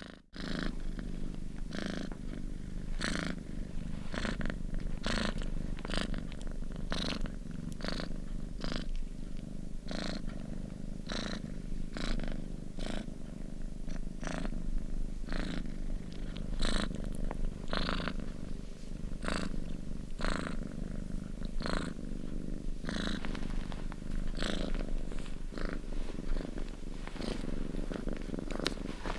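Domestic cat purring close up: a steady low rumble with breathy pulses about one and a half times a second.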